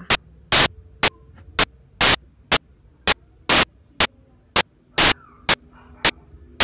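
Short bursts of loud static crackle repeating about twice a second, over a faint low hum.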